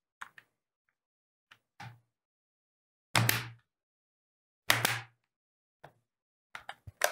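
Hard plastic shell of an OtterBox Defender case being pressed shut around an iPad, its clips snapping into place: two louder snaps with a slight knock about three and five seconds in, and faint clicks and taps between and near the end.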